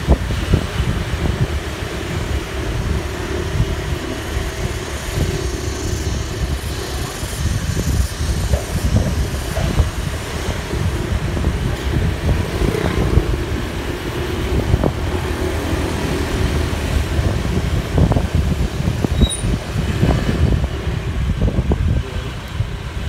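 Motorbike running steadily while riding along a town street, with the noise of passing traffic and an irregular low rumble throughout.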